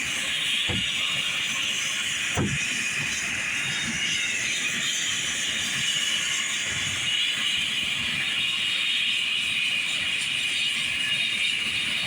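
Helicopter turbine engine running on the ground, a steady high-pitched hiss, with two short thumps about a second and two and a half seconds in.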